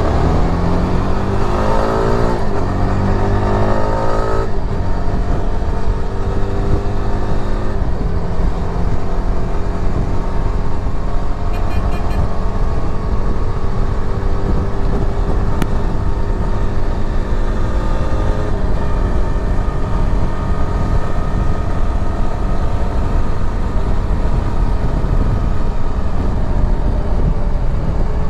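Yezdi Adventure motorcycle's single-cylinder engine accelerating hard, its pitch climbing and dropping at upshifts about two and four and a half seconds in, then cruising steadily at highway speed under a constant rush of wind.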